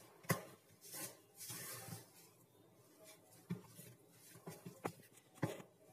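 Hands kneading soft flour dough in a plastic bowl: faint squishing and rubbing, with a few sharp taps of the hand against the bowl.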